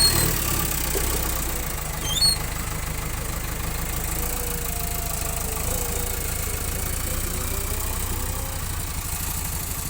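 JCB 4DX backhoe loader's diesel engine running steadily at a low idle, with a brief high chirp about two seconds in.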